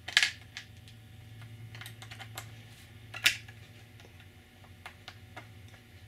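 Small clicks and taps of stainless M4 socket head cap screws being fitted by hand into the corners of a bulkhead connector housing: a sharp click just after the start and another a little past three seconds in, with lighter ticks between, over a steady low hum.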